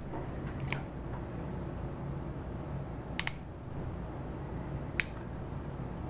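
A few light clicks from a crimp connector, wire and crimping tool being handled and set in place: one about a second in, a quick double click near the middle, and a sharper one near the end, over a steady low hum.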